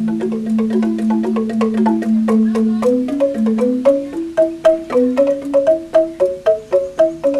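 Balinese rindik, a bamboo xylophone, played with mallets: a steady run of struck, ringing notes, a low line held under a quicker melody, the strikes growing more sharply accented in the second half.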